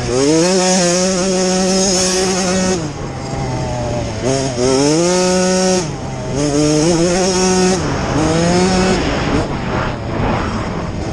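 Small off-road motorcycle engine revving hard, climbing in pitch, holding, then easing off, about four times in a row as the throttle is worked.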